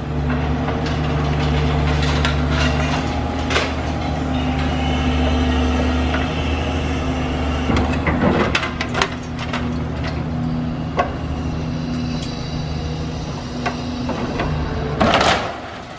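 Heavy excavator diesel engines running steadily under hydraulic load while a high-reach demolition machine pulls at a concrete building, with scattered cracks and knocks of breaking concrete and steel and a louder crash of falling debris about fifteen seconds in.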